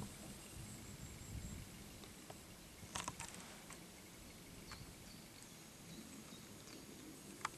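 Faint outdoor quiet with a few short, sharp clicks: two close together about three seconds in and one near the end.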